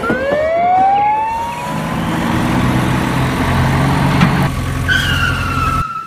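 A siren wail rises in pitch over the first second or so, followed by a steady low engine drone. Near the end a high siren tone slides slightly downward, and then all sound cuts off abruptly.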